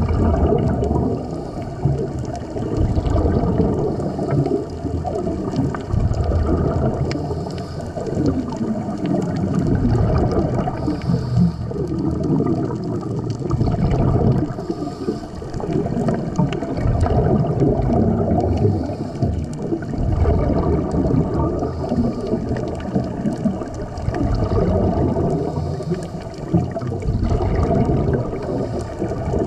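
Underwater recording of scuba divers' exhaled regulator bubbles gurgling, with water noise, swelling and easing every few seconds.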